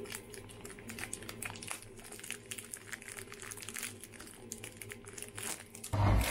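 A plastic bread bag crinkling in irregular crackles as hands twist its neck shut. Near the end a louder low rumble cuts in suddenly.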